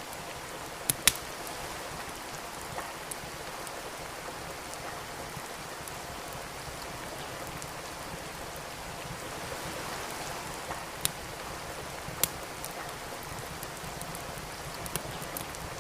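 Steady rain with the occasional sharp crackle and pop of a wood fire burning in a fireplace, the loudest pops about a second in.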